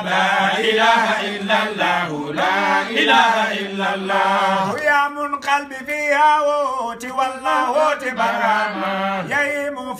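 Male voices chanting Arabic Islamic devotional verses together in a continuous melodic recitation, with a low note held underneath at times.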